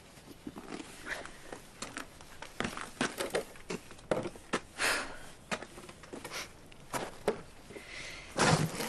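Footsteps and clothes rustling as a person gets up and moves about to go outside, with scattered knocks and clicks; a louder rough scraping noise near the end.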